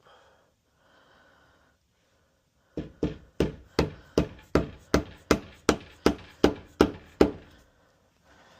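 Hammer striking a wood chisel into the door edge, about a dozen sharp, even blows at roughly three a second, starting about three seconds in. The chisel is cutting along the pencil outline of a deadbolt mortise.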